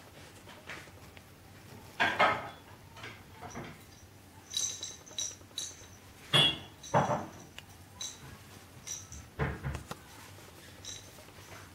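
Small plastic roller cat toy rattling and clinking in irregular bursts as a kitten bats and pushes it along the carpet, some knocks with a short high ring.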